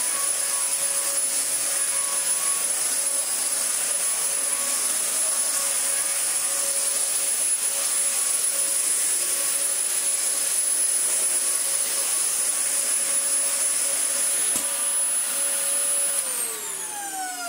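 A Dyson DC40 upright vacuum cleaner runs on its newly replaced motor: a steady high whine over the rush of air, with the post-motor filter's howl still present, a sign of the worn filter. About 16 seconds in it is switched off, and the whine falls in pitch as the motor spins down.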